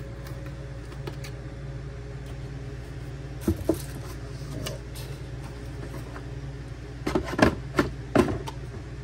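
Handling noise: a battery-powered mini chainsaw knocking and clattering against its hard plastic carrying case on a wooden workbench. There are two knocks about three and a half seconds in and a louder cluster of knocks near the end, over a steady low hum.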